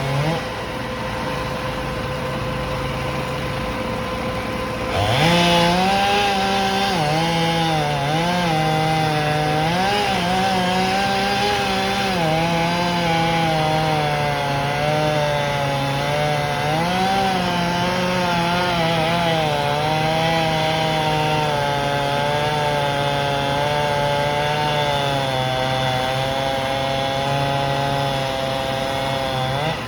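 A lower steady engine note at first; about five seconds in, a chainsaw is opened up and cuts through wood, its engine pitch dipping and recovering repeatedly under load.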